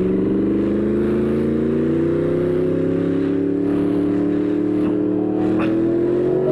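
A 2018 Yamaha R1's crossplane inline-four, cat deleted and ECU flashed, pulling under throttle in one gear. Its pitch rises slowly and steadily as the revs climb.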